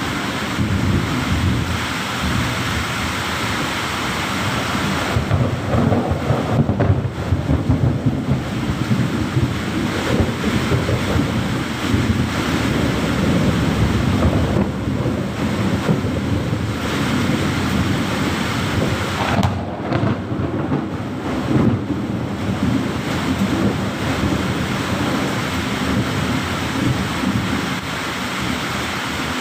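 Thunderstorm: steady rain with thunder rumbling, the rumble loudest about six to eight seconds in.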